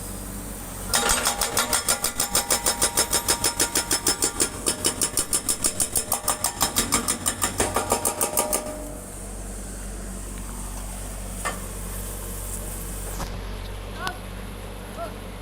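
Hydraulic breaker hammering in a fast, even rapid-fire run, about seven blows a second, over a steady machine engine hum. It stops about nine seconds in, leaving the engine running with a few faint knocks.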